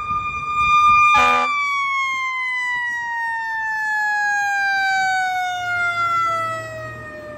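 Fire engine siren holding a steady high pitch, then winding slowly down in pitch after a short horn blast about a second in.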